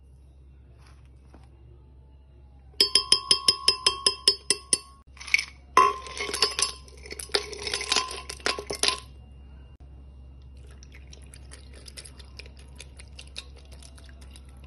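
A metal spoon tapping rapidly against a glass blender jar, about five ringing clinks a second, in two runs. After that comes a faint steady trickle of liquid being poured into the jar.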